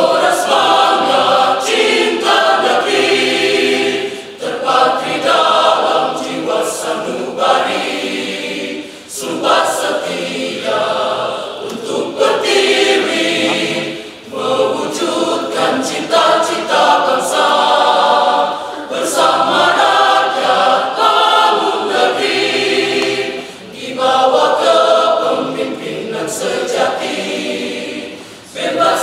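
Church choir of mixed men's and women's voices singing under a conductor, the phrases separated by short breaks every few seconds.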